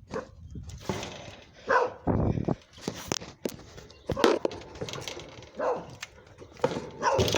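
Dogs barking and yipping in short, scattered bursts.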